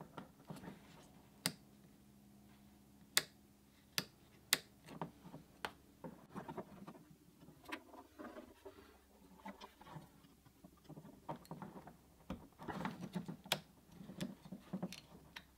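Scattered light clicks and handling noise as crimped spade connectors are pushed onto the terminals of a plastic dual rocker switch and the switch is worked into its wall opening.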